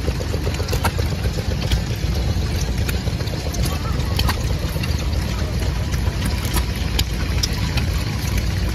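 Vintage stationary engines running on display, giving irregular sharp clicks and knocks over a steady low rumble.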